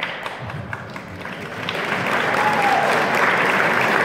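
Audience applauding, the clapping growing louder about a second and a half in.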